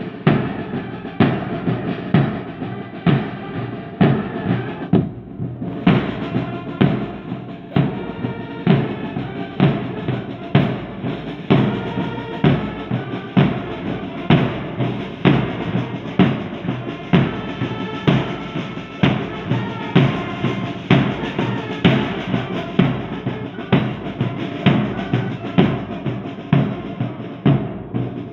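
Military band drums playing a march: bass drums beat a steady pulse about once a second, with lighter snare strokes between the beats and cymbal clashes.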